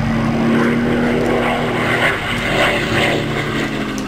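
Propeller aircraft engine running at a steady drone, beginning to fade out near the end.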